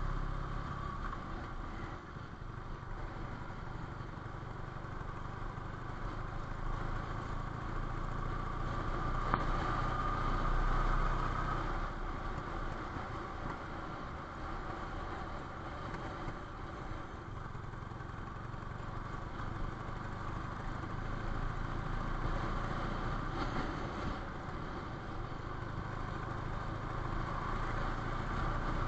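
A vehicle engine running steadily at cruising speed with road and wind noise, the engine note swelling a little about ten seconds in and again near the end. A brief click about nine seconds in.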